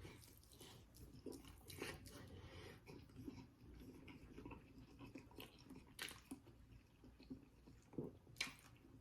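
Faint chewing and mouth sounds of a person eating, with scattered small clicks, a little stronger about six and eight seconds in.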